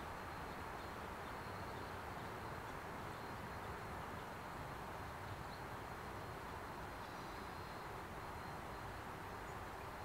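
Steady background noise, an even hiss, with a faint thin high tone held throughout; no distinct calls or knocks stand out.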